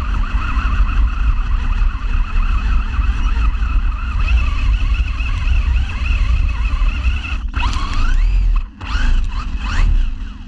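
RC car's motor whining over a heavy rumble of the chassis and tyres on rough, wet ground. The whine wavers with throttle, dips briefly near the end, then climbs and falls in pitch as the car speeds up again.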